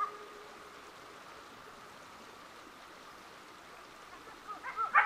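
A lull in a wolf pack's chorus. The last overlapping howls die away at the very start, leaving only a faint steady hiss. About four and a half seconds in, several wolves start howling together again, their wavering pitches overlapping.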